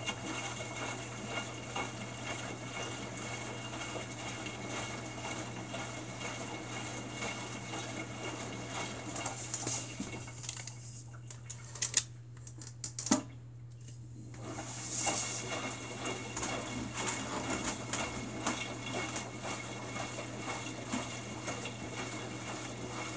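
Samsung WF45N5300AW front-load washer tumbling its empty drum with water, water sloshing and pattering against the stainless drum over a steady low hum. About halfway through the drum pauses for a few seconds, with two sharp clicks, then tumbles again.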